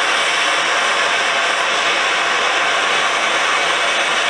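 Handheld gas torch flame hissing steadily as it heats the steel head of a tack hammer clamped in a vise, bringing the metal up to a glow.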